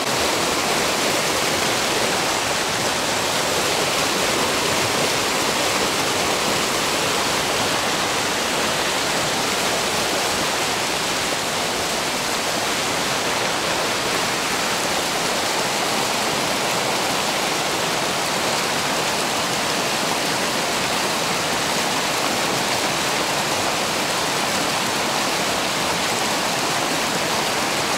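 Mountain river rushing: a steady, unbroken roar of fast-flowing water.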